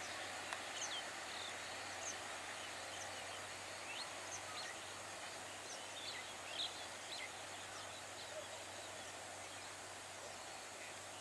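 Birds chirping now and then, short separate calls over a faint steady outdoor hiss.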